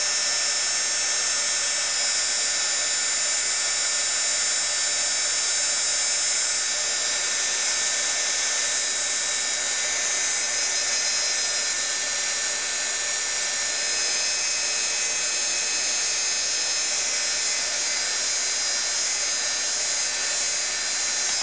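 Craft embossing heat gun running steadily, its fan motor giving a constant whine over a blowing hiss as it melts embossing powder on a paper flower.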